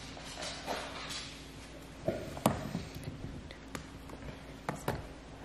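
A few sharp clicks and light knocks from handling a new phone and its small box parts, the loudest a little past the middle, over a faint steady hum.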